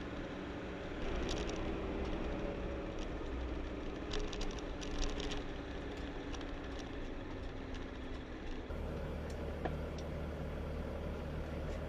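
Toyota Coaster's 1HZ straight-six diesel engine running steadily while driving, heard from inside the cab. Light clicks and rattles come in the first half.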